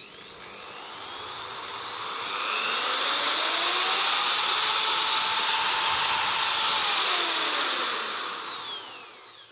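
Doliz BA670 550-watt impact drill running free with a bit in the chuck: the motor whine rises as it speeds up, holds at top speed for a few seconds, then falls as it slows down. The running sound is smooth and very fast.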